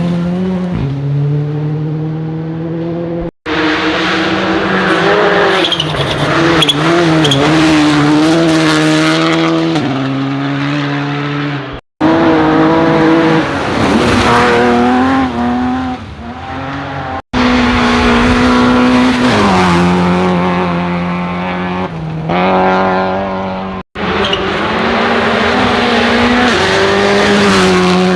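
Rally cars driven flat out, engines at high revs whose pitch rises and drops as they change gear. The sound comes as five clips, each cut off suddenly into the next.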